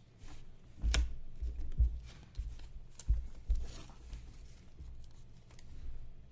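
2019-20 Panini Select basketball cards being handled and sorted, sliding against one another with a few sharp clicks and soft thumps.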